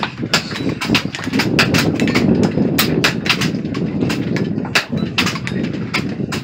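Many air rifles firing along a benchrest line: sharp, irregular pops several times a second, over a steady low background noise.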